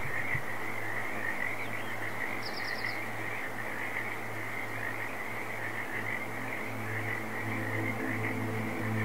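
A dense, steady chorus of high trilling animal calls over a low hum, with a quick run of five higher chirps about two and a half seconds in. Held music tones begin to come in near the end.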